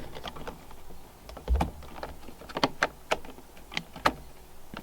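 Scattered clicks and knocks of the Honda S2000's driver airbag module and its wiring connector being handled as the connector is unplugged, with a dull thump about a second and a half in.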